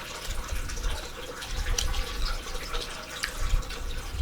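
Steady trickle of running water, with small scattered clicks and a few soft low thumps.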